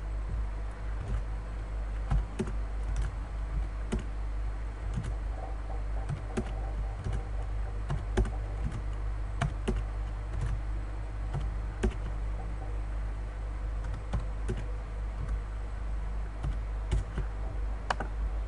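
Computer keyboard typing: irregular key clicks and taps at an uneven pace, over a steady low hum.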